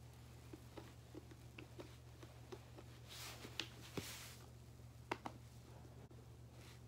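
Very quiet room: faint scattered clicks and soft taps over a low steady hum, with a soft hiss about three seconds in.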